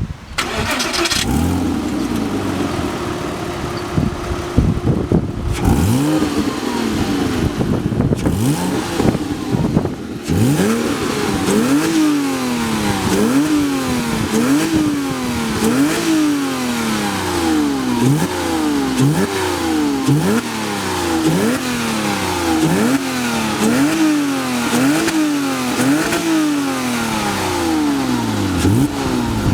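Porsche 987 Boxster's flat-six engine through its stock exhaust: it starts up, idles steadily for a few seconds, then is revved over and over. From about ten seconds in, it gives a regular series of quick blips, each a sharp rise in pitch falling back to idle, roughly one every second and a half.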